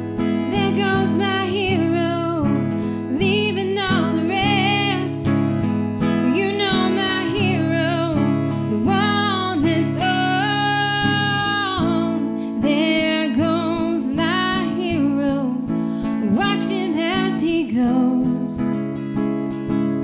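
A song: strummed acoustic guitar accompanying a singer, with one long held note about halfway through.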